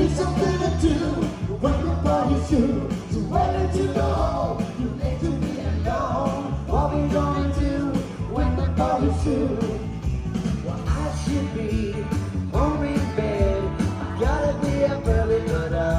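Live rock band playing an upbeat rock-and-roll song with a steady beat, a male voice singing over it.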